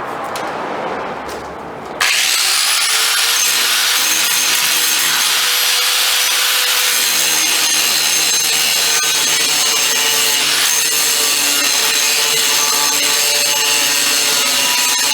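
Angle grinder starts about two seconds in and grinds down a fresh weld on a steel latch tab, a steady whine over a harsh grinding hiss.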